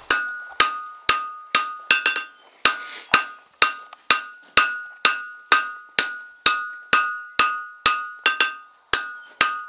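Hand hammer striking red-hot steel on a JHM anvil in steady blows about two a second, each with a short bright ring from the anvil. The smith is spreading the hot end of the stock out wider for an auger bit.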